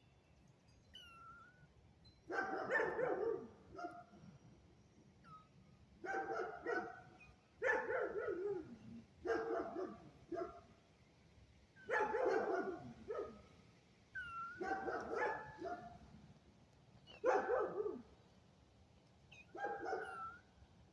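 A dog barking in repeated bouts, about eight clusters of barks every one to two seconds, with faint high chirps in the gaps between them.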